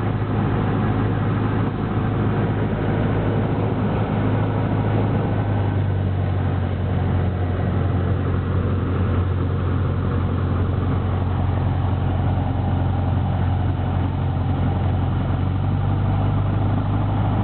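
Cessna 152's four-cylinder Lycoming piston engine running steadily, its note shifting slightly about six seconds in.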